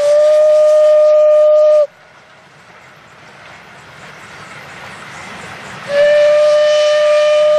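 Steam locomotive whistle blowing one steady, single-pitched note that cuts off about two seconds in, then sounding again about six seconds in. In between, the passing train's running noise grows gradually louder.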